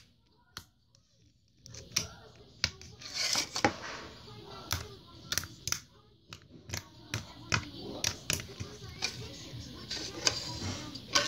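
Thick white slime being squeezed, kneaded and stretched by hand, giving many sharp clicks and pops and stretches of wet crackle. It starts about a second and a half in, after near silence.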